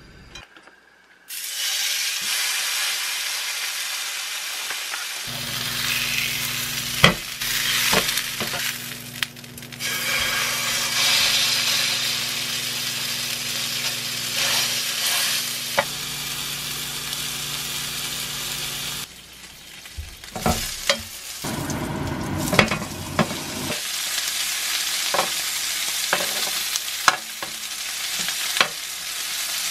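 Pork steak sizzling and frying in a hot grill pan, starting about a second in. Metal tongs click and scrape against the pan as the meat is turned, with one sharp click about 7 seconds in. A low steady hum runs under the first half.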